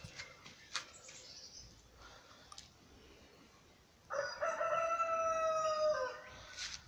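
A rooster crowing once: one long call of about two seconds, starting about four seconds in, held level and then dropping in pitch at the end. Before it, a few faint clicks and rustles.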